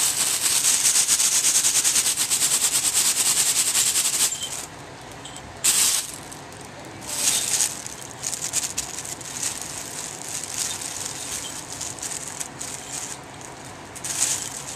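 Thin plastic bag crinkling and rustling as kittens paw and chew at it, loud and continuous for the first four seconds, then quieter with short bursts of crinkling now and then.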